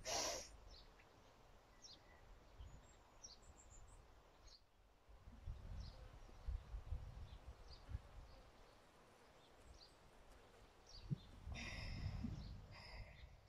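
Faint bird chirps scattered over a quiet background with a low rumble. About a second and a half before the end comes a brief breath sound in two short parts, fitting a two-stroke exhale in a pranayama breathing cycle.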